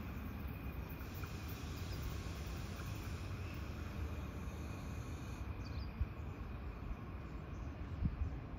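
Commuter train rolling slowly into a station, a low steady rumble with a faint steady high tone over it. Two brief soft knocks come about six and eight seconds in.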